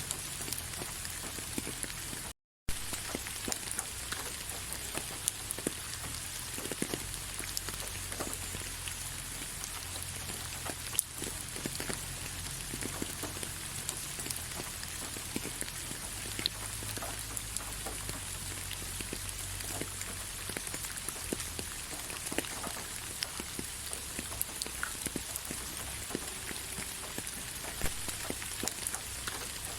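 Gentle, steady rain: an even hiss with many individual drops ticking on a surface. The sound cuts out for a fraction of a second about two seconds in, and one sharper drop stands out near the middle.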